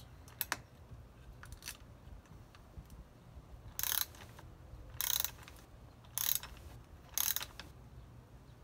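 Socket ratchet tightening brake rotor-ring bolts through a digital torque adapter: four short bursts of ratchet clicking about a second apart, after a few light tool clicks at the start.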